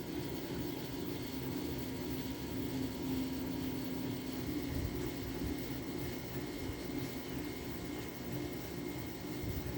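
2009 GE 10,000 BTU window air conditioner running and cooling: its rotary compressor and fan motor give a steady, even hum with a few faint steady tones over it.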